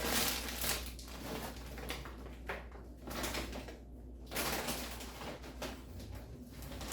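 Irregular rustling and shuffling of produce and plastic grocery bags being handled and unpacked, over a low steady hum.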